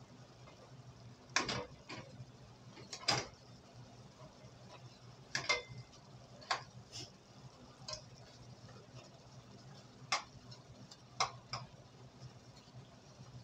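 A stirring utensil knocking and scraping against the side of a metal pot as shrimp in sauce are turned, about ten irregular clacks, over a low steady hum.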